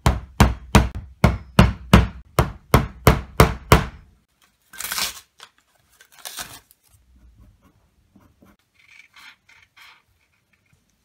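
Hammer driving small nails into an MDF board through a paper template, steady blows about three a second for roughly four seconds. Then paper tearing twice as it is pulled off the nails, and near the end a few faint snips of scissors cutting paper.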